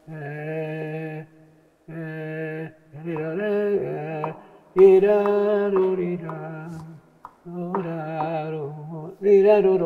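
Male flamenco singer (cantaor) singing unaccompanied soleá phrases. He holds long, wavering, ornamented notes in about six phrases with short breaths between them. The loudest and longest phrase starts about five seconds in.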